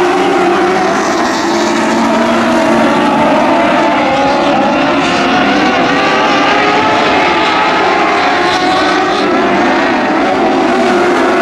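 A pack of dwarf race cars' motorcycle engines running together, several engine notes overlapping and wavering up and down as the cars accelerate and lift.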